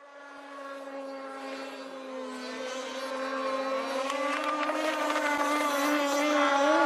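Radio-controlled model boat's motor running at a steady high pitch, getting steadily louder as the boat comes closer, with a slight rise in pitch near the end.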